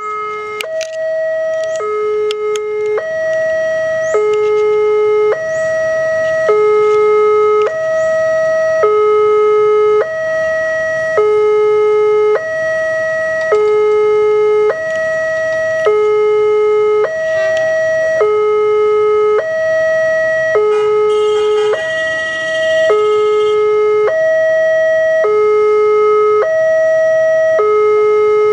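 Indonesian railway level-crossing alarm sounding: an electronic two-tone signal alternating steadily between a higher and a lower tone, each held about a second. This is the warning that a train is approaching while the barrier is down. A few clicks come early, and a brief burst of other noise comes about three-quarters of the way through.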